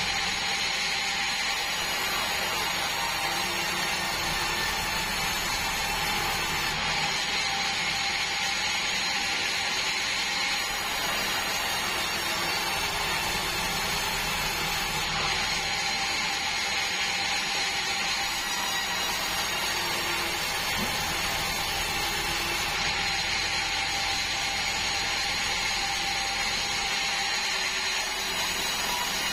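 Band sawmill running steadily: a constant machine noise with a few steady whining tones and no breaks.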